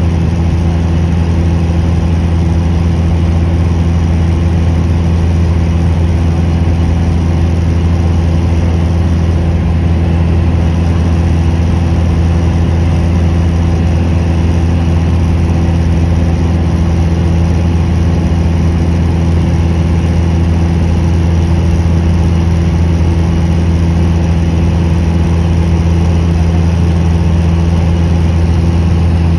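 Steady aircraft cabin noise in flight: engine drone and airflow heard from inside the cabin, a loud, unchanging low hum.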